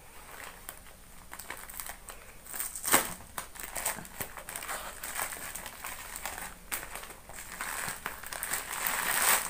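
Plastic courier mailer bag being torn open and pulled apart by hand: irregular crinkling and crackling of the plastic, loudest about three seconds in and again near the end.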